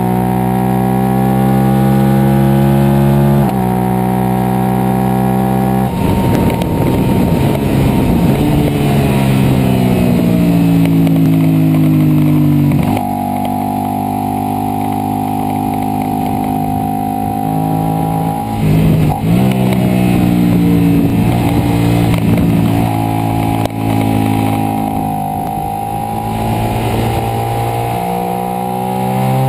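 Suzuki SV650's V-twin engine running hard on track. Its pitch climbs under acceleration and steps down at gear changes, with a brief dip and blip about two-thirds through, over a rush of wind.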